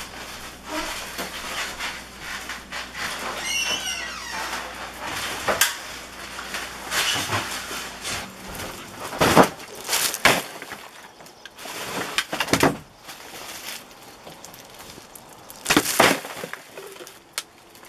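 Full plastic trash bags rustling and bumping as they are carried out of the house and dropped into an outdoor garbage can, with a brief wavering squeak about three seconds in and several sharp knocks near the middle and again near the end.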